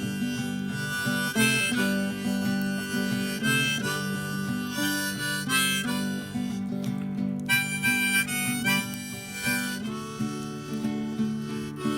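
Harmonica playing a melodic solo of held and changing notes over acoustic guitar accompaniment.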